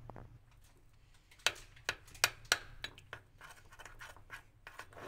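A spoon stirring melted dark chocolate in a bowl, scraping around it with a few sharp clicks against the bowl's side in the middle.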